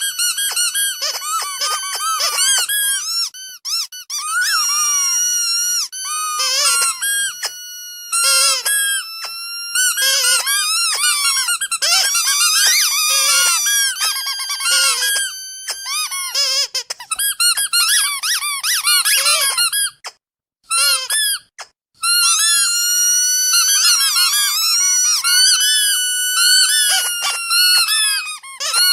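Loud, high-pitched squeaking: a rapid run of squeaks, some short and some held for a second or so, with a brief break about two-thirds of the way through.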